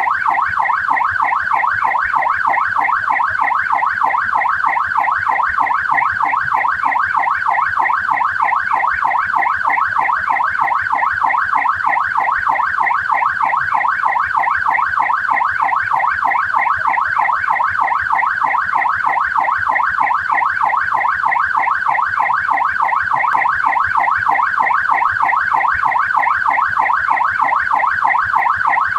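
Australian police car siren sounding continuously in a fast, even rising-and-falling sweep, about four sweeps a second.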